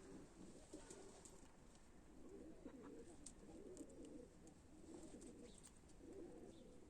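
Faint pigeons cooing: soft, low, repeated coos with a few faint high ticks among them.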